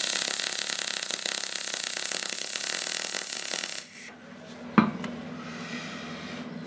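Deca Decastar 150E MIG welder's gas-shielded arc crackling steadily for about four seconds, with the wire feed turned up a little, then cutting off abruptly as the torch is lifted. About a second later there is a single sharp click, and a low steady hum remains.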